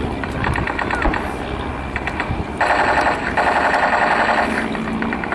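Piston engines of replica First World War aircraft, a Fokker Dr.I triplane among them, flying a mock dogfight overhead. A fast rattling pulse gets louder about two and a half seconds in and holds for about two seconds.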